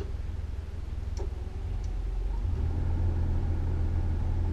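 Boat engine running with a low rumble while docking, growing louder about two seconds in as it is throttled up to manoeuvre.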